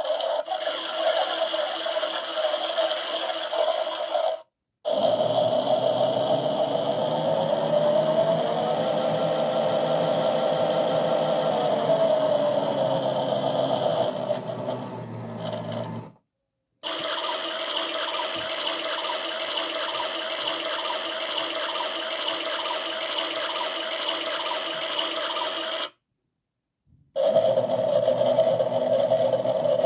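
Washing machine running a wash programme: a steady motor whine with rattling, whose pitch rises and then falls back in the middle as the drum changes speed. The sound cuts out completely three times, briefly each time.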